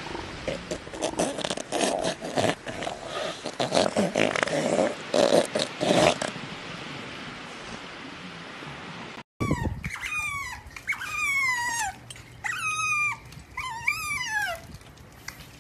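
For about nine seconds, a rough noisy stretch with uneven loud bursts. Then, after a sudden cut, an otter gives a string of about six high, squeaky chirps that fall in pitch.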